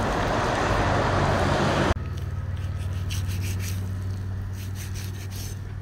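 A steady rushing noise cuts off abruptly about two seconds in. After it come a knife's short, irregular scraping strokes as skin and fat are trimmed off raw pork, over a low steady hum.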